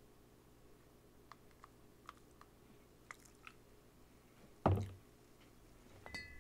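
Faint clicks and small handling noises of a plastic cup and glass soda bottle as a drink is poured and sipped, with one short, louder knock a little past two-thirds through.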